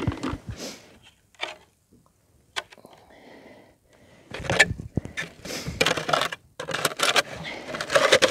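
Plastic clunks and scraping as a red plastic base is handled and fitted onto a filled plastic poultry waterer bucket. A few small clicks come first, and the handling grows dense and loud about halfway through.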